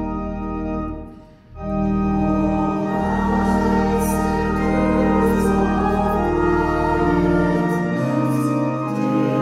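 Church organ playing a hymn with held chords over a steady pedal bass. It breaks off briefly about a second in, between lines, then comes back in, with a small congregation singing along.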